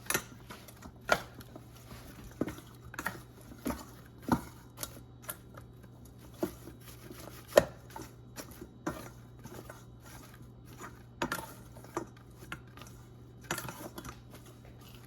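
Oiled, seasoned broccolini being tossed to coat it: irregular clicks and light knocks of the stalks and the utensils against the container, with one sharper knock about seven and a half seconds in.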